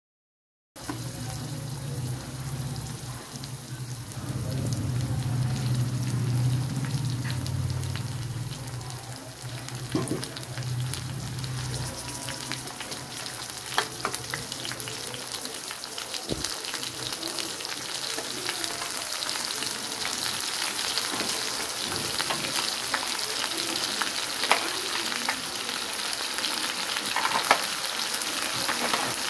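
Raw mutton chops sizzling as they fry in hot oil on a large iron tawa, a steady hiss that starts about a second in, with a few sharp crackles and taps scattered through it.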